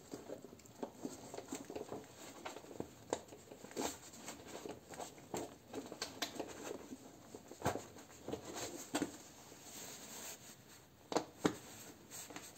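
Scattered small clicks, taps and rustles of a screw being fitted into a cardboard panel and tightened a little by hand, with a few sharper knocks in the second half.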